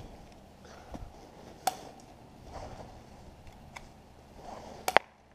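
Sharp snaps of airsoft guns firing plastic BBs: one a little under two seconds in and a quick double snap near the end, the loudest.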